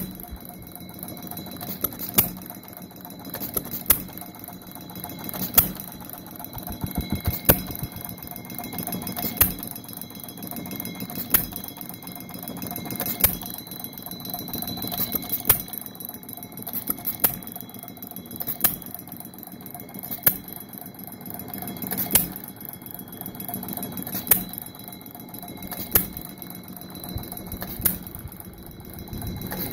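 5/16 scale model Root and Vandervoort vertical hit-and-miss engine running. It gives a sharp pop about every two seconds as it fires and coasts between firings, with a quick run of several pops about seven seconds in.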